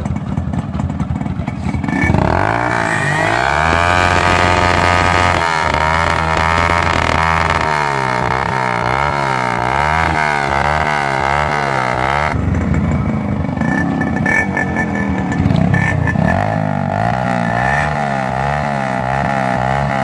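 Yamaha RX100 two-stroke and Hero Splendor Plus four-stroke single-cylinder motorcycle engines running side by side, throttles blipped up and down over and over. There is a sudden change in the sound about twelve seconds in, then more revving.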